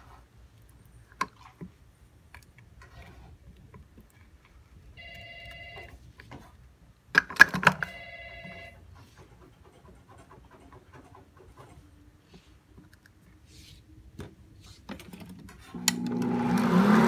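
A spatula scraping and knocking against a plastic stand-mixer bowl, with a telephone ringing twice midway through. Near the end the stand mixer's motor starts up, its hum growing louder as it begins creaming the butter.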